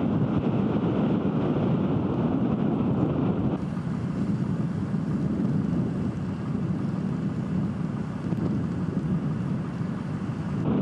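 Wind buffeting the microphone, a steady low rumble with hiss. About three and a half seconds in the sound changes abruptly to a thinner, hissier version of the same noise.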